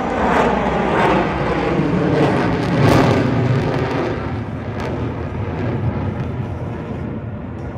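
Jet aircraft roaring past overhead, loudest in the first few seconds and then fading steadily as it flies away.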